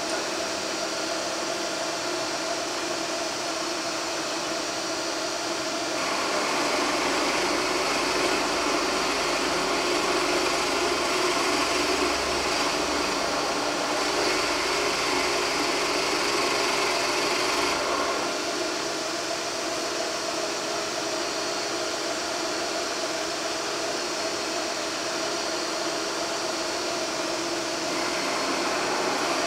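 Drill press running steadily with a hiss, growing louder for about twelve seconds a few seconds in and again near the end as the 20 mm brad point bit bores dog holes in wood.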